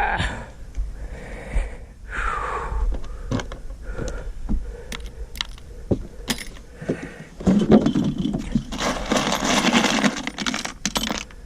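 Small metal screws clinking and rattling as a hand sorts through a pile of them, with scattered sharp clicks and a longer stretch of rummaging over the last few seconds.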